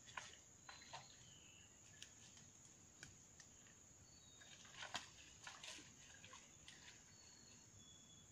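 Near silence: a faint steady high-pitched insect drone, with a few short faint bird chirps and scattered soft clicks.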